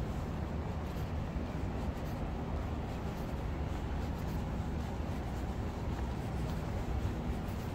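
Steady city street background noise: a constant low rumble with a hiss over it and faint scattered ticks.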